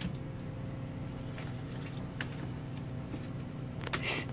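Soft squishes and light taps of gloved hands handling raw, seasoned half chickens on aluminum sheet pans, a few small clicks with a slightly louder cluster near the end, over a steady low hum.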